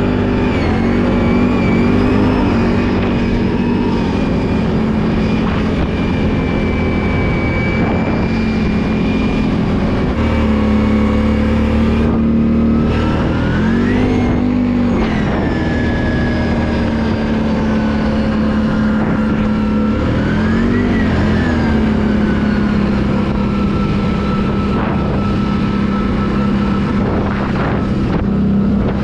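Can-Am ATV engine running steadily under way, with its pitch rising and falling briefly twice, at about fourteen and twenty-one seconds in, as the throttle is opened and eased off.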